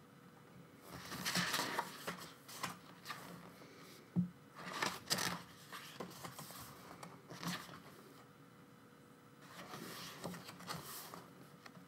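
Pages of an album photobook being turned and handled, a papery swish every few seconds.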